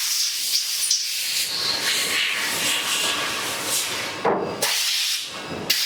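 CNC lathe machining noise in a turning workshop: a steady hiss, with a louder surge about four seconds in and another near the end.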